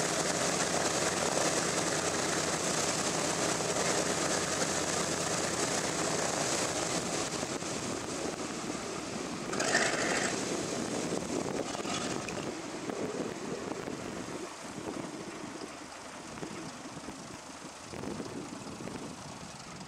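Radial engines of a four- or twin-engine World War II bomber running with a propeller drone, slowly fading away as the aircraft moves off. A brief louder burst about halfway through.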